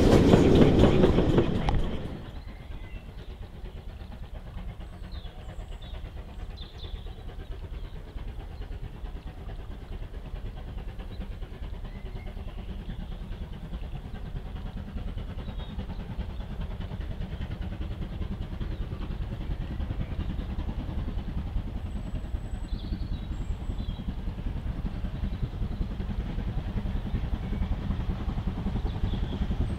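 A steam locomotive passing close and loud, cut off abruptly about two seconds in. Then the low rumble of a distant steam locomotive hauling a train, growing slowly louder as it approaches, with brief bird chirps now and then.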